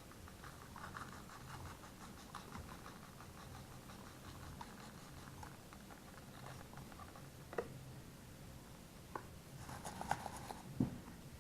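Baking soda being added to grated laundry soap: a faint, dry pattering of many small grains landing, with a few sharper clicks in the last few seconds.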